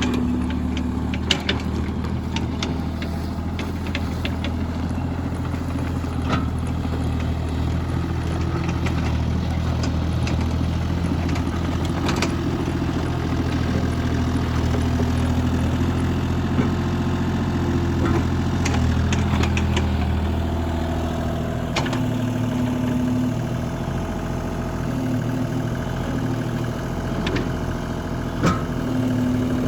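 Mini excavator's diesel engine running steadily, with occasional sharp metallic clanks from the machine at work. The engine note shifts about two-thirds of the way through.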